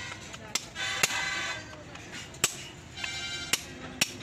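Hammer striking rivets to fasten a lining onto a truck drum-brake shoe: about five sharp metal blows, irregularly spaced.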